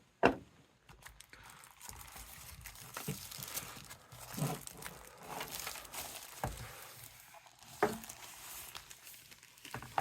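Keyboard packaging being handled: plastic and paper crinkling and rustling, with a few sharp clicks and knocks.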